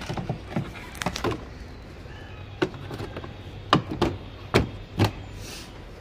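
Plastic back panel of an LG semi-automatic washing machine being pressed and knocked into place on the plastic cabinet: a run of about eight irregular plastic knocks and clicks, the loudest in the second half.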